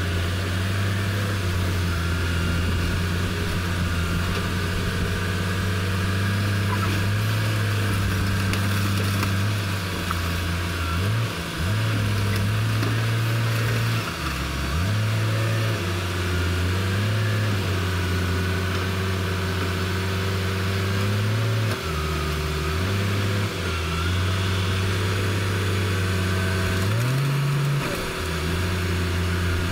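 Diesel engines of a Komatsu wheel loader and a car crusher running loudly, their note stepping up and down every few seconds as the machines are worked.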